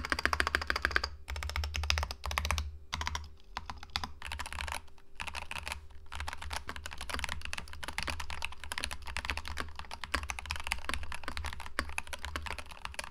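Fast, continuous typing on a Keychron K2 Pro mechanical keyboard. The keystrokes come in an unbroken run, with no echo or ping: the case is packed with foam, there is a silicone layer in the bottom, and the switches and screw-in stabilizers are lubed.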